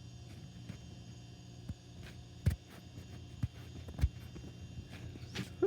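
Low steady hum with a few sharp knocks scattered through it and a short rising sound near the end.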